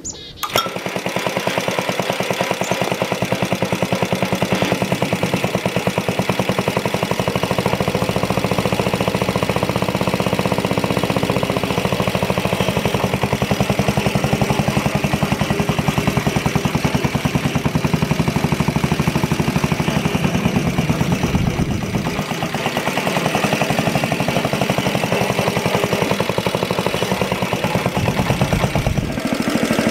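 Old Briggs & Stratton single-cylinder engine on a walk-behind tractor catching on a starter-rope pull and then running steadily with a rapid, even firing beat while the tractor is driven. The sound dips briefly about two-thirds of the way through, then comes back up.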